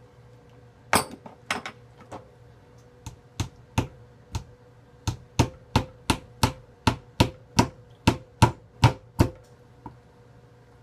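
Hammer driving a nail through a catfish's head into a wooden cutting board: a few scattered blows, then a steady run of about a dozen strikes at roughly three a second that stops a second or so before the end.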